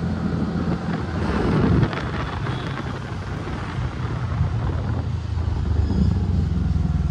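TVS Ntorq 125 XT scooter's single-cylinder engine running at a steady cruise of about 30 km/h, with wind rushing over the microphone, strongest between one and two seconds in.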